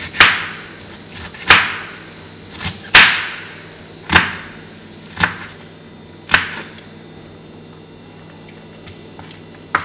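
Kitchen knife chopping a red onion on a wooden cutting board: about six sharp chops roughly a second apart, stopping about two-thirds of the way through.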